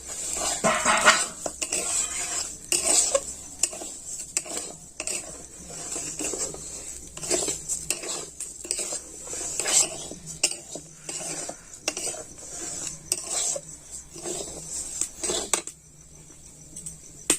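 Moong dal being fried in a little oil in a kadai, stirred continuously: irregular scraping and knocking of the utensil against the pan over a faint sizzle. The stirring eases off for a moment near the end.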